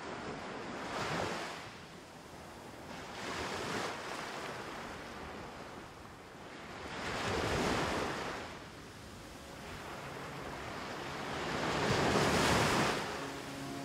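Sea surf: waves breaking and washing up the shore in four slow swells, each rising and fading over a couple of seconds, the last and loudest near the end.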